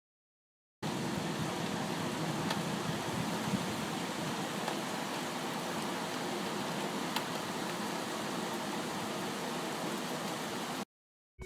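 Steady rain falling, an even hiss with a few faint drop ticks, quieter than full downpour. It starts about a second in after a brief silence and cuts off just before the end.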